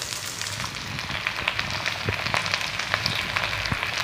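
Shredded cabbage and sliced onion frying in hot oil in a kadhai: a steady sizzle dotted with fine crackling pops.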